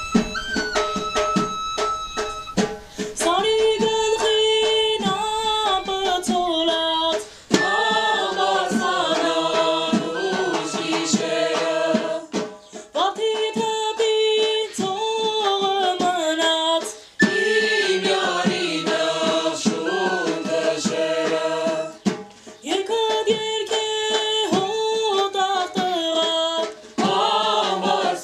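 Armenian folk ritual song for Ascension Day: a group of voices sings in phrases of about four to five seconds, with short breaks between them. It opens with a few seconds of held instrumental notes before the voices come in.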